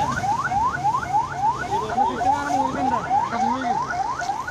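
Electronic vehicle siren sounding in quick rising chirps, about four a second, heard from inside the vehicle carrying the body.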